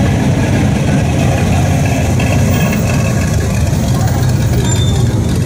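Engines of classic cars and trucks running at idle and low speed as they crawl past in a line, a steady low rumble.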